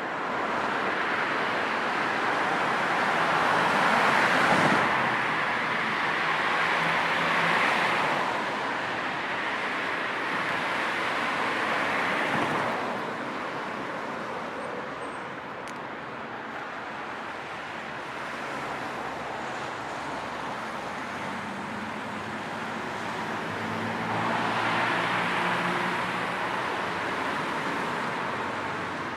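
Road traffic noise: a steady hiss of tyres and engines, swelling as several vehicles pass, with the loudest passes about 4 s, 8 s and 12 s in and again around 25 s. Near the end an engine hum from a slower or idling vehicle can be heard under the hiss.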